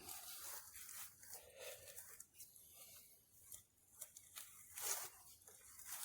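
Faint, irregular scraping and rustling, with a sharp click at the start and a louder swish about five seconds in: a dog-proof trap's anchor being worked into soft, rain-soaked ground.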